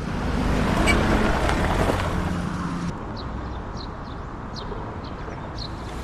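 A vehicle running, heard as a steady rushing noise that eases somewhat after about three seconds. From then on, short high chirps repeat over it.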